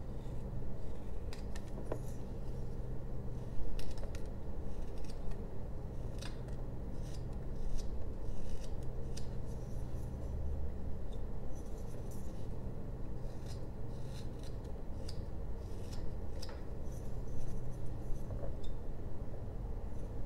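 Carving knife slicing basswood by hand: irregular, crisp short cuts and scrapes as the blade shaves thin curls off the wood, some strokes louder than others.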